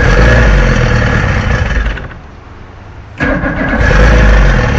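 Force 125 two-stroke outboard being cranked by its electric starter in two bursts, one to about two seconds in and another from about three seconds in, a steady whirring churn that never catches. It is a cold start after months of sitting, which the owner suspects is hampered by old gas.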